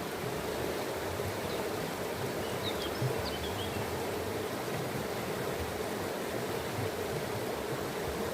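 Steady rush of running stream water, with a few brief, high bird chirps about two to three seconds in.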